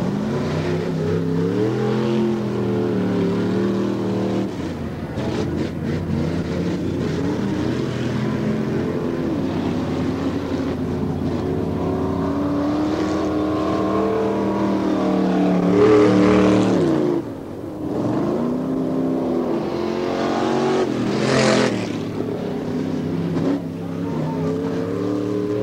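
V8 off-road race buggies on open headers running hard on a dirt track, the engines revving up and falling back again and again as they accelerate and lift. The sound swells loudest about sixteen seconds in and again around twenty-one seconds, briefly dropping away between the two.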